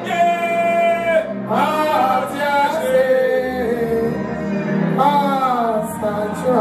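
A man singing a slow worship song into a microphone, holding long wavering notes that slide from one pitch to the next.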